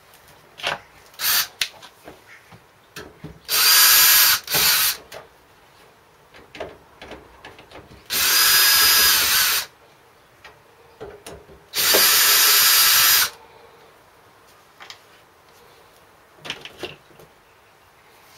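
Cordless power driver backing out three screws: three runs of a steady motor whine, each lasting a second or two. The first run stops briefly and starts again, and small clicks and handling knocks fall between the runs.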